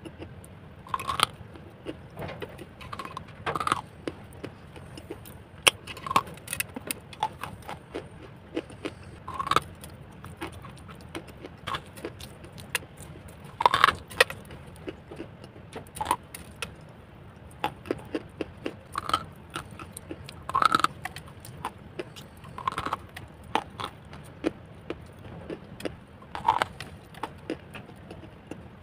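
Lumps of dry white khadi clay bitten and chewed close to the microphone: irregular crisp crunches and crackles, with a louder bite every few seconds.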